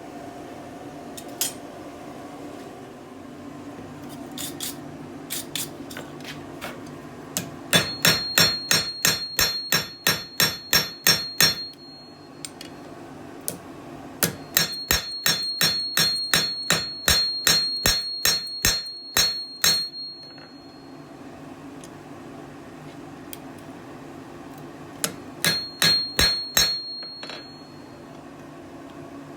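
Hammer striking hot iron on an anvil, working the edge of a small forged axe-head piece: a few scattered taps, then three runs of quick, even blows, about three a second, with a high ring from the anvil sounding through each run.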